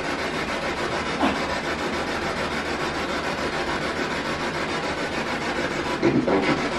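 A ghost-hunting spirit box sweeping through radio stations: a continuous hiss of static, with short snatches of sound breaking through about a second in and again near the end.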